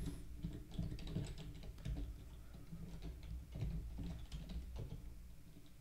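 Typing on a computer keyboard: faint, irregular keystrokes as a line of code is entered.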